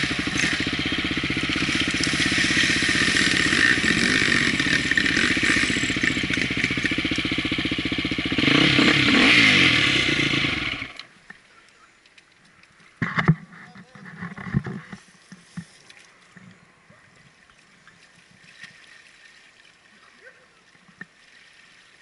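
Enduro dirt-bike engine running close by, revving up around nine seconds in, then cutting off suddenly about eleven seconds in. After that it is quiet, apart from a few short knocks and clatters.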